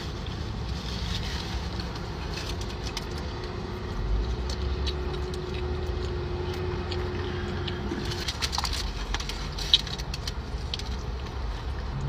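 Low steady hum inside a car's cabin. In the second half come small clicks and crackles of chewing and of a plastic fork working in a paper tray of loaded fries, with one sharp click about ten seconds in.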